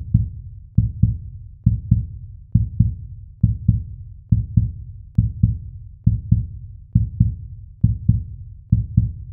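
Deep heartbeat-like double thumps, lub-dub, repeating a little faster than once a second in a steady rhythm on the soundtrack.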